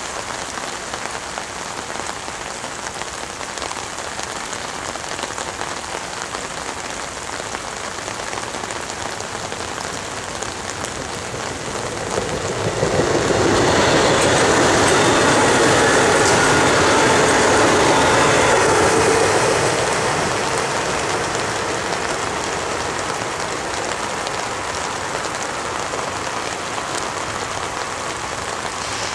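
Steady rain pattering on an umbrella held over the microphone, with a louder rushing swell lasting about seven seconds in the middle before it settles back.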